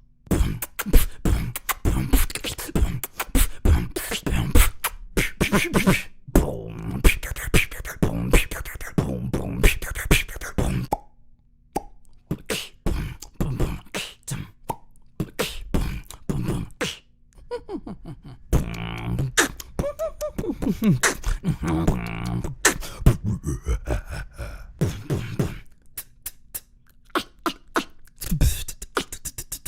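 Beatboxing: a human voice making rapid percussive drum-like clicks, kicks and snares with pitched vocal effects mixed in, pausing briefly twice.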